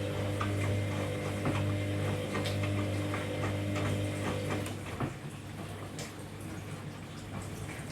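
Hoover DynamicNext washing machine in its main wash: a steady electrical hum with water noise and light clicks, which stops about two-thirds of the way through, leaving quieter water movement and occasional ticks.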